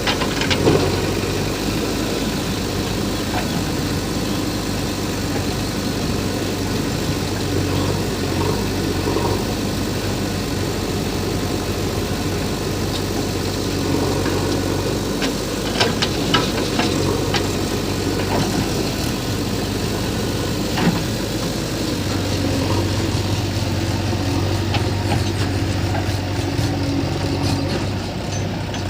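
Heavy diesel engine of a backhoe loader running steadily while loading stone. A few sharp knocks of stone striking metal come through it, two of them close together about halfway through.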